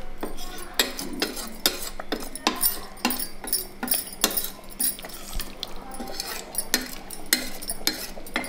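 Metal ladle stirring watery chicken gravy in a metal pressure cooker pot, clinking and scraping against the pot's sides and bottom a few times a second.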